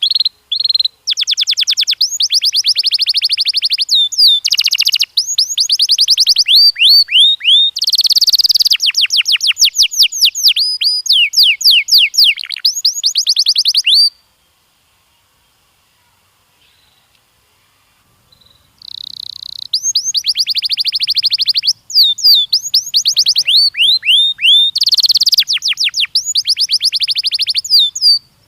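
Domestic canary singing: fast rolls of repeated whistled notes, changing from one trill to the next. The song breaks off about halfway through, with a few seconds of silence, then starts again.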